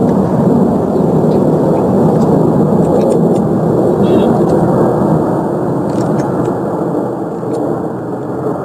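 Ilyushin Il-76 cargo plane's four turbofan engines in flight, a loud steady jet rumble that eases off slightly near the end.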